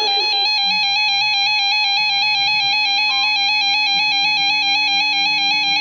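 Emergency Alert System attention signal: a steady electronic alert tone held without a break, rich in overtones.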